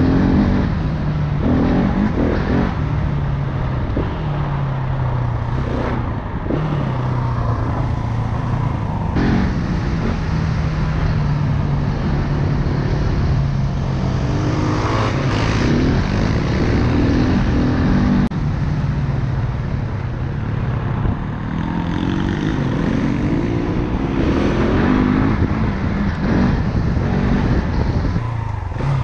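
Single-cylinder four-stroke dirt bike engine running under way, its note rising and falling repeatedly as the throttle opens and closes through the ride.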